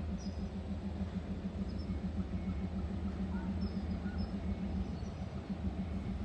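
Sri Lanka Railways Class M10a diesel locomotive idling, a steady low pulsing hum, with a few faint bird chirps over it.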